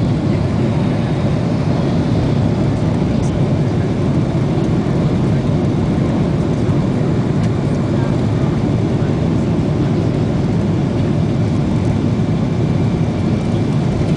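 Boeing 777 airliner's engines and airflow during takeoff: a steady, loud, low rumble that holds even throughout.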